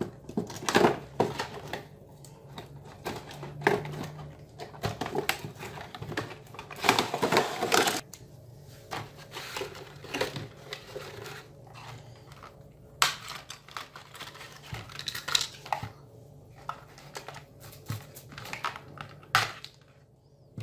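Toy packaging being handled: cardboard and plastic crinkling, rustling and scraping in irregular bursts as the insert is slid out of the box, with sharp clicks and scissor snips cutting the doll's ties in the second half.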